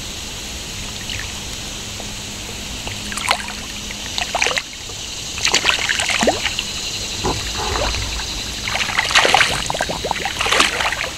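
River current running around a wader's legs, with a hooked channel catfish splashing and thrashing at the surface as it is reeled in close. The splashes come in spells about three, six and ten seconds in.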